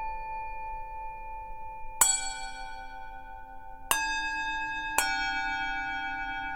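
Tibetan singing bowls struck one after another, three strikes about two, four and five seconds in. Each rings on with several steady overtones, layered over the slowly fading ring of an earlier strike.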